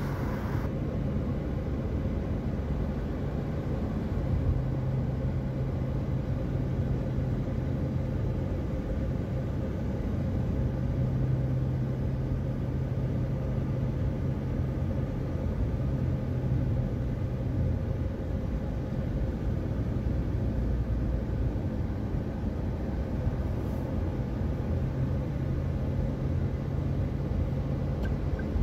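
Steady hum of a moving car's engine and tyres on the road, heard from inside the cabin.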